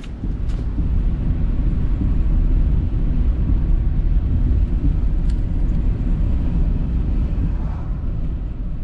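A car driving, heard from inside the cabin: a steady low rumble of engine and road noise, with a few light clicks.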